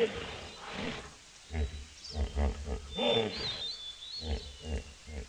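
Wild animal roaring and growling: a longer call at the start and another about three seconds in, with runs of short, deep, rhythmic grunts between and after them.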